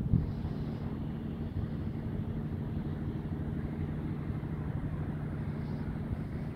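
Aerial cable car running past its pylon: a steady low hum from the moving cables and tower sheaves, with a short low thump right at the start.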